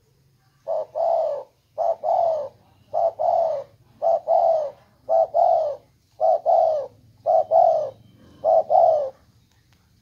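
Spotted dove cooing, the trained 'greeting' song of a tame bird: eight phrases about one a second. Each phrase is a short note and then a longer note that falls in pitch.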